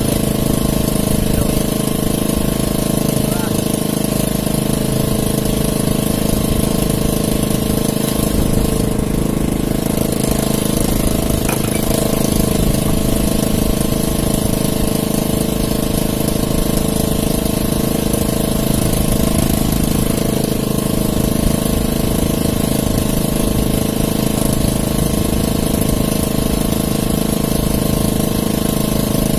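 A small engine running steadily with an even drone that does not change speed.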